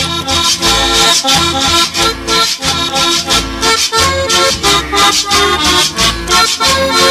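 Accordion-led cumbia music playing with a steady, bouncing beat and bass.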